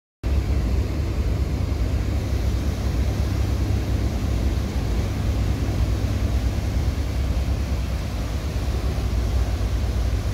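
Halunder Jet high-speed catamaran ferry running its engines as it pulls away from the pier, stern wash churning: a steady heavy rumble with a rushing noise over it, starting suddenly just after the beginning.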